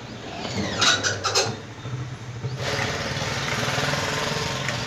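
An engine or motor running steadily with a low hum, a few sharp knocks about a second in, then a loud steady hiss-like noise joining from about halfway through.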